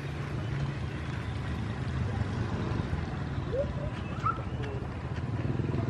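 Diesel locomotive's engine running with a steady low hum as it moves slowly toward the station.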